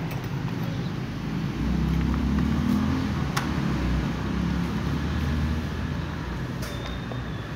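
Low motor rumble that swells about a second and a half in and eases off near the end, with a couple of faint clicks.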